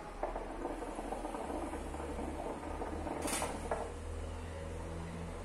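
Water in a hookah base bubbling steadily as smoke is drawn through the hose, with a low gurgling hum underneath; the bubbling stops a little before four seconds in, just after a brief sharp sound.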